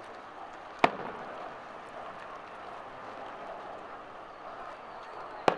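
Two aerial firework shells bursting with sharp bangs, one about a second in and one near the end, over steady background noise.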